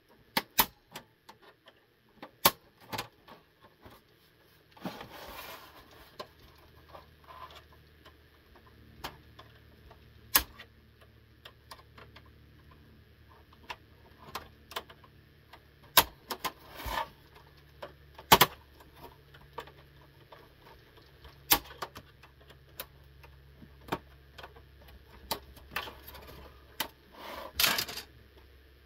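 Irregular plastic clicks, snaps and knocks as the shell of an Xbox 360 S (Trinity) console is handled and pried at to open it, with a faint low hum underneath from about five seconds in.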